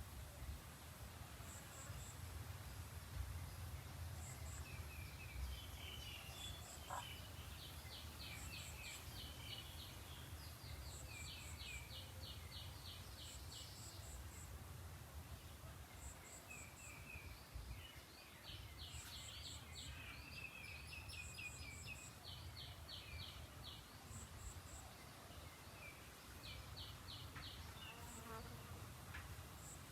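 Faint outdoor wildlife ambience: repeated high trills of rapid chirps, each a second or two long and recurring every few seconds, with fainter short triple chirps higher up and a low steady rumble underneath.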